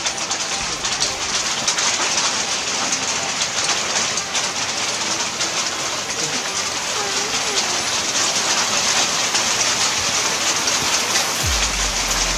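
Steady rain falling through tree foliage, an even hiss full of many small taps. A low hum comes in about a second before the end.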